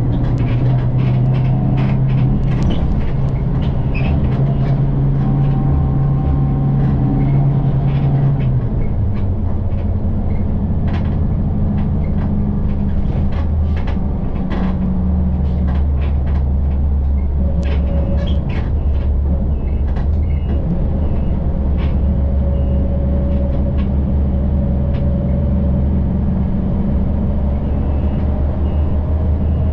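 City bus heard from inside the cabin while under way: the engine's low drone and road noise run steadily, with frequent small rattles and clicks from the bodywork. About nine seconds in, the engine note drops to a lower pitch.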